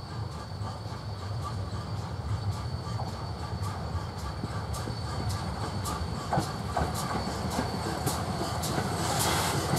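BR(W) 'Modified Hall' 4-6-0 steam locomotive No.7903 Foremarke Hall approaching with a goods train, its sound growing steadily louder as it nears. A low rumble carries a regular rhythmic beat that becomes sharper and stronger near the end.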